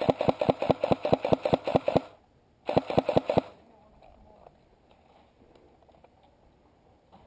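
Airsoft electric rifle firing two full-auto bursts: about two seconds of rapid shots at roughly seven a second, then after a short pause a second burst of about half a second.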